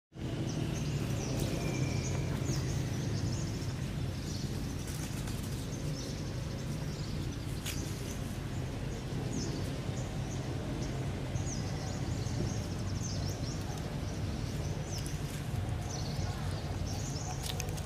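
Outdoor ambience: a steady low hum with scattered short high-pitched chirps and a few faint clicks.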